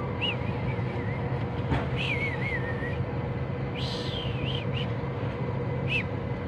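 Steady low rumble of street background noise, with several short high chirps coming and going over it.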